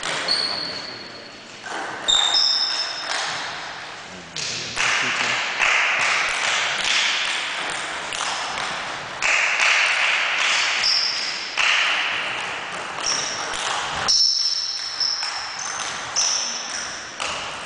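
Table tennis rally: the ball clicks off bats and table in quick, irregular strikes, each hit echoing in a large gym hall, with short high squeaks scattered through.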